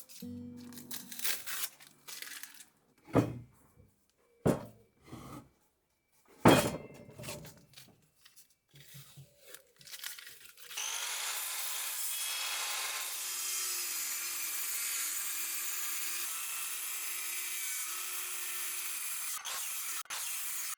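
Several separate sharp knocks on timber, the loudest a second or two apart. About halfway through, a power tool starts cutting into oak and runs steadily for about nine seconds, then stops abruptly.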